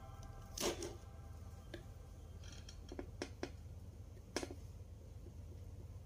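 Faber-Castell Connector felt-tip pen handled and tapped on paper while dotting in a pattern: a few soft clicks and taps, three in quick succession about three seconds in and a sharper one a second later, over a low steady hum.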